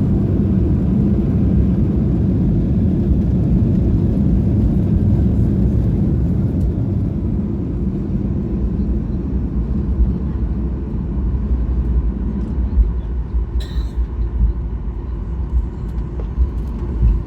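Boeing 737-800 cabin noise on the ground after landing: a steady low rumble of engines and wheels, with the higher rush dying away about seven seconds in. A short click sounds about fourteen seconds in.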